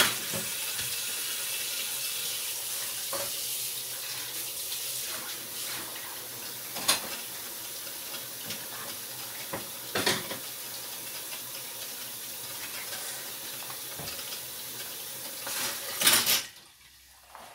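Kitchen tap running into the sink while something is rinsed, with a few sharp clinks of dishes. The water stops abruptly after a clunk about sixteen seconds in.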